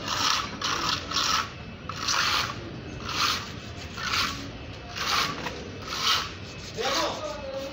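Flat hand trowel rubbing and scraping across a rough textured wall coating in repeated strokes, about one a second, each a short gritty rasp as the finish is worked into its pattern.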